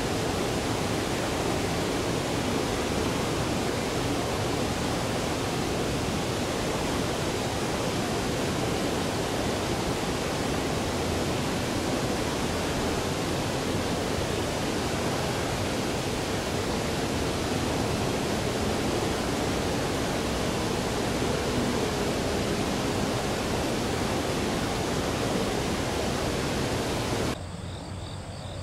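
Steady rushing of flowing river water. About a second before the end it cuts off abruptly to a quieter background with faint insects chirping.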